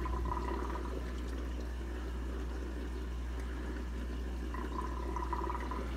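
Steady low hum and gentle water movement of a running saltwater aquarium, its pump circulating the water. A faint high tone comes in briefly near the start and again near the end.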